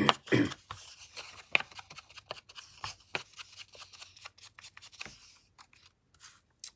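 Ink blending tool scrubbed in quick, irregular short strokes along the edge of a strip of patterned paper, a dry scratchy rubbing with paper rustle; the strokes thin out about five seconds in.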